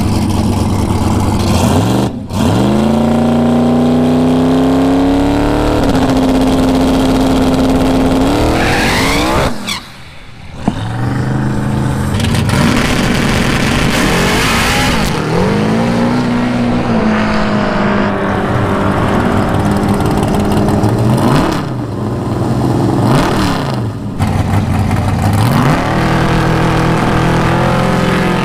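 Drag-racing muscle cars' V8 engines at the starting line, in several short back-to-back clips. Each engine note climbs sharply in pitch, holds steady for a few seconds, then climbs again as the car launches away.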